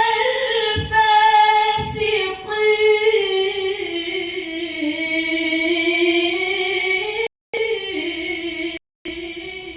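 A woman's melodic Qur'an recitation with no accompaniment: one long drawn-out note on the closing words of a verse, slowly sinking in pitch with small ornamental wavers. The sound cuts out completely twice for a moment near the end.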